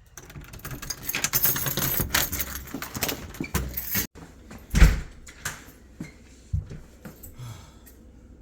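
Keys jangling and rattling for several seconds, then a single heavy thud about five seconds in and a lighter knock a little later.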